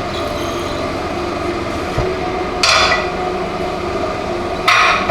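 Two short metal clanks about two seconds apart, over a steady hum, as the steel parts at a hydraulic press are handled just after the vise tailpiece has been pressed free.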